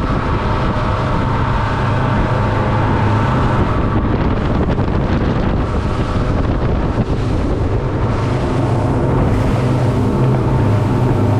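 Twin 200 hp outboard motors running steadily at cruising speed, with a continuous low drone, under the rush of spray and wake off the hull and wind buffeting the microphone.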